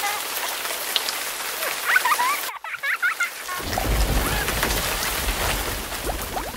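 Layered sound effect of liquid spraying and spattering, a steady hiss like rain, with short squeaky glides about two seconds in. The sound briefly drops out about two and a half seconds in, then returns with a low rumble under it.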